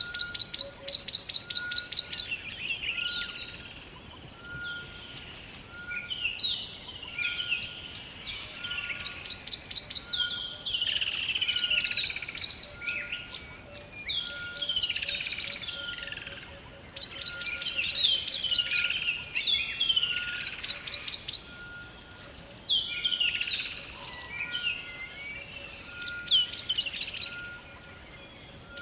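Several songbirds singing in a forest chorus: bouts of rapid high trills and down-slurred whistled phrases every few seconds, over a short note repeated evenly about once a second.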